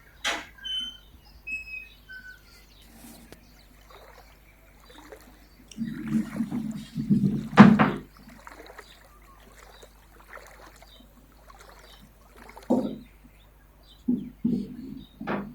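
Irregular splashing and sloshing of floodwater, in a few clusters with one sharp loud splash about halfway through. A few short bird chirps sound in the first two seconds.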